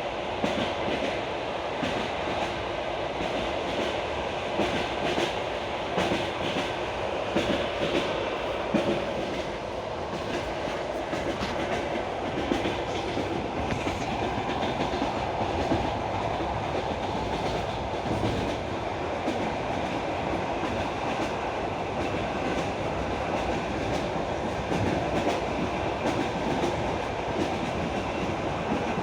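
Passenger train running on the rails, heard from inside the carriage: a steady rumble of wheels on track with the clickety-clack of the wheels knocking over rail joints again and again.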